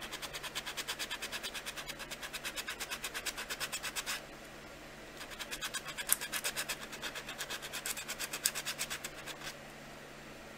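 Worn drywall sanding block rubbed in quick back-and-forth strokes over baked polymer clay, a rhythmic rasping scratch. It sands gold mica paint back off the raised detail. The strokes pause for about a second after about four seconds, start again, and stop about nine and a half seconds in.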